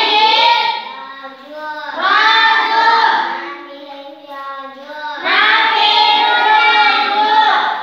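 Children chanting a lesson aloud in a sing-song voice, in three phrases with short pauses between.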